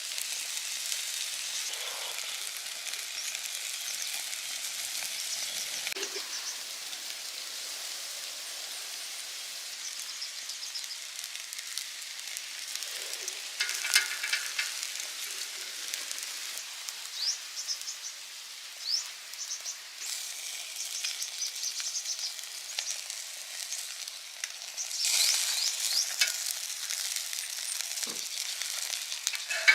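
Steak sizzling over a wood fire: a steady high hiss with small crackles, and a few louder clicks or pops about halfway through and again near the end.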